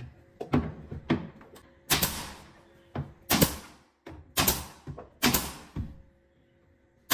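Nail gun firing a series of sharp shots, fastening a wooden ceiling panel to its battens. The loudest shots come about a second apart, with fainter knocks between them.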